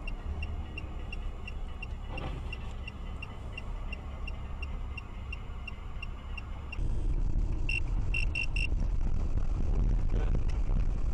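Car-cabin engine and road rumble under an evenly spaced clicking, about two and a half ticks a second, like a turn-signal relay. About seven seconds in it cuts abruptly to a louder, steadier rumble of a car driving, with a brief run of four ticks.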